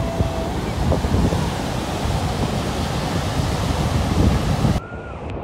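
Ocean surf breaking and washing up over sand, with wind buffeting the microphone. Near the end it drops suddenly to quieter surf.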